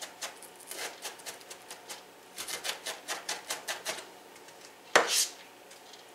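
Kitchen knife chopping onion on a plastic cutting mat: quick runs of sharp knife strokes, about seven a second, with a pause between runs and one louder knock about five seconds in.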